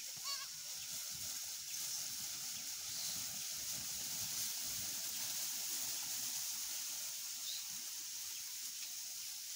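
Herd of goats moving across a grassy field, with soft irregular rustling and trampling in the grass under a steady high hiss. A short rising chirp comes just after the start.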